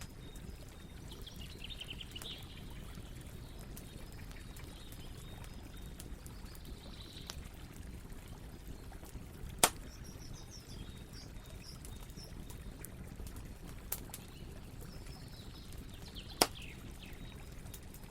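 Campfire burning with a steady low rumble and scattered crackles, and two sharp, loud pops, one about halfway through and one near the end. Faint chirping calls come and go in the background.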